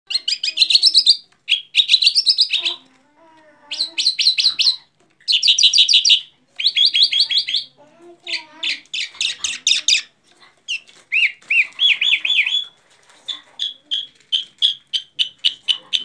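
Caged jal bird (Iranian Mashadi type) singing loud phrases of fast, trilled notes about a second long, with short pauses between them and fainter, lower wavering notes in the gaps. Near the end the song turns into a run of short chirps, about four a second.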